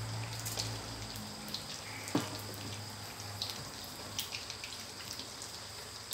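Sun-dried red tilapia frying in hot oil in a stainless steel pan, the oil crackling with scattered pops and spits. A sharper click comes about two seconds in.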